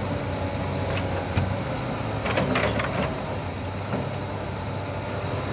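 Kobelco hydraulic excavator's diesel engine running steadily, with a clatter of soil and stones dropping from the bucket into a dump truck's steel bed a little over two seconds in.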